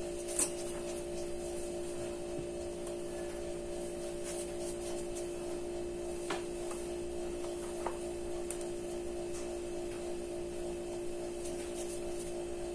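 A steady, even hum on one low tone with fainter tones above it, with a few faint soft clicks.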